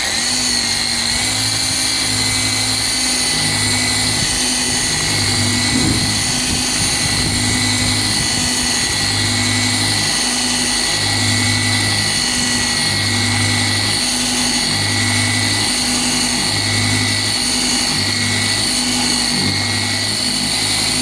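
Rupes LHR21 random-orbital polisher running with a medium cut pad and compound, cutting out 1,000-grit sanding scratches in car paint. It gives a steady high whine over a low hum that swells and drops about every second and a half.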